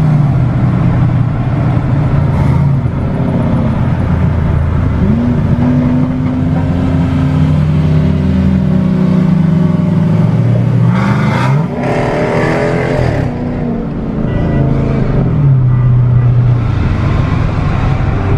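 Modified car engine running loud, revved up and back down several times, with a harsher, higher burst of revving about eleven seconds in.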